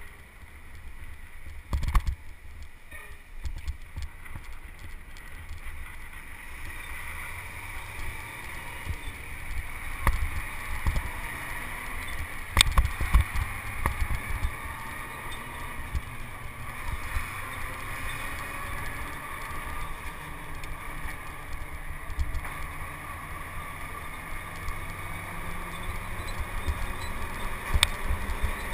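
Wind and road rumble on a bicycle-mounted camera riding at speed close behind a dump truck, with the truck running just ahead. Every so often there is a sharp knock as the bike jolts over the road, the loudest about a third of the way in.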